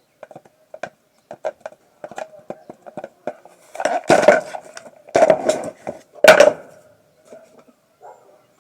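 Metal tools and parts clinking and knocking, a run of light taps with three louder, briefly ringing knocks in the second half, as work goes on replacing the pulsator bush of a washing machine.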